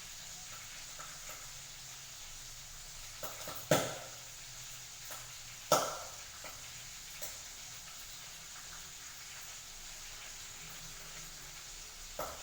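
Food sizzling steadily in a pan while being stirred, with a few clicks of a cooking utensil and two sharp, loud knocks against the pan about two seconds apart near the middle.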